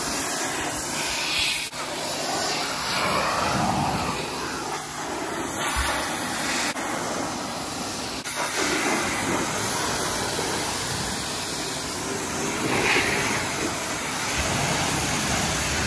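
Greenworks Pro electric pressure washer spraying water: a steady hiss of the high-pressure jet that swells and eases a little as the spray moves.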